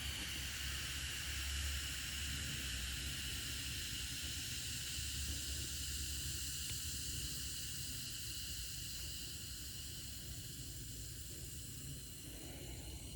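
Alka-Seltzer Plus effervescent tablets fizzing as they dissolve in a glass of water: a steady high hiss that slowly dies down as the tablets dissolve.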